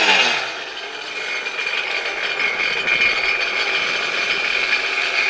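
Sea-Doo jet ski's Rotax engine idling at the dock with a steady high whine. A short throttle blip dies away in the first half second.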